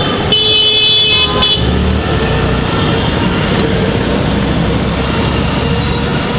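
Busy city road traffic heard from a moving rickshaw, with a horn sounding for about a second near the start and a steady rush of noise, largely wind on the microphone.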